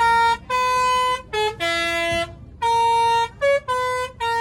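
Telolet horn playing a tune: a run of about eight loud, sustained horn notes at changing pitches, separated by short breaks.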